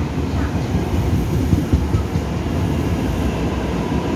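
Taiwan Railway express electric train running into an underground station platform: a steady low rumble of its wheels on the rails as the carriages pass.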